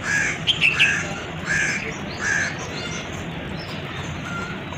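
A bird calling outside, about four short calls at roughly even spacing in the first two and a half seconds, over a steady low hum.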